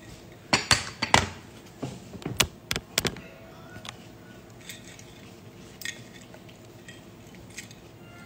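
Close handling noise: a quick run of sharp clinks and knocks in the first three seconds, then a few scattered ones.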